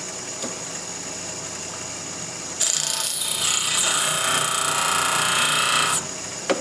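Bench grinder running, then a mild steel tool blank pressed against the spinning wheel about two and a half seconds in, giving a loud grinding hiss for about three and a half seconds that stops abruptly when the blank is lifted off; this is the top rake of a left-hand lathe tool being ground. A short click near the end.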